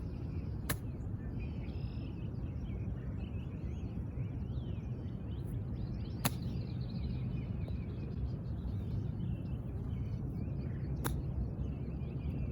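Birds chirping over a steady low outdoor rumble, with three sharp clicks about five seconds apart; the middle click is the loudest.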